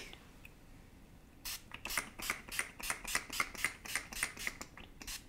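Urban Decay All Nighter setting spray, a pump-mist bottle, spritzed onto the face in quick repeated pumps of hissing mist, about four a second, starting about a second and a half in.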